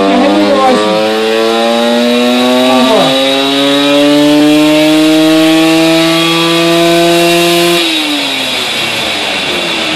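Simson moped's 85 cc ZT-tuned two-stroke engine pulling under load on a dyno, its pitch climbing slowly as the revs build. About eight seconds in the throttle comes off and the pitch and level fall away.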